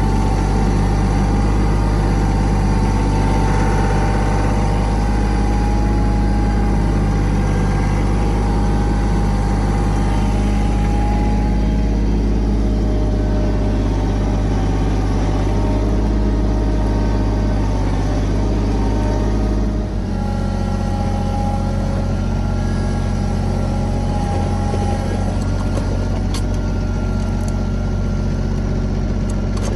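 Kioti compact tractor's diesel engine running steadily while pulling a plow through sod. The engine note changes abruptly about two-thirds of the way through.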